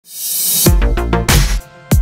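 Electronic dance music: a hissing swell rises in over the first half second, then heavy kick drums and deep bass come in, with a brief drop-out near the end just before the next kick.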